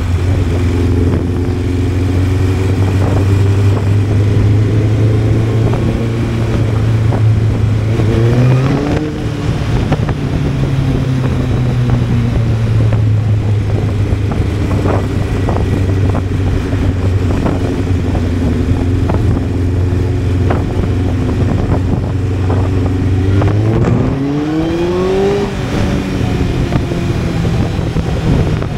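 Honda CBR600F inline-four motorcycle engine running at steady road revs. About eight seconds in the revs rise briefly and settle. Near the end they climb steadily for about two seconds under acceleration, then drop, as at a gear change.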